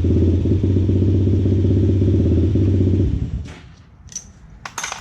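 A small engine idling steadily, which cuts off about three seconds in and dies away within a second; a few light clicks and clinks follow.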